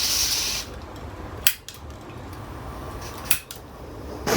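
Iwatani butane torch burner being lit: a short hiss of gas, then two sharp clicks of its push-button piezo igniter about two seconds apart. Right at the end the torch catches with a sudden rush of flame.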